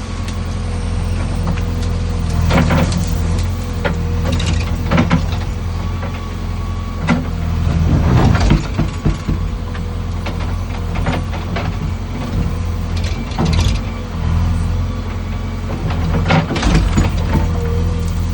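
Backhoe loader's diesel engine running steadily, with a steady whine and a series of sharp clanks and knocks every second or few.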